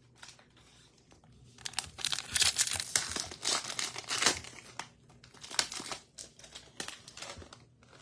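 A baseball card pack's wrapper being torn open and crinkled by hand, with a dense crackle from about a second and a half in until past four seconds, then a few shorter crinkles.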